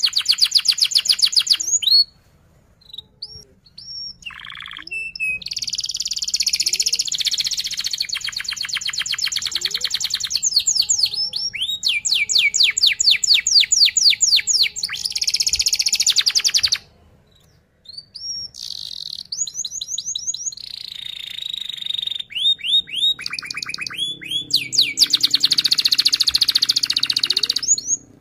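Domestic canary singing in long, fast rolling trills (the 'ngerol' style), high-pitched runs of rapidly repeated notes, some as quick downward sweeps. The runs break off twice into short pauses, about two seconds in and again past the middle, with a few single chirps in between.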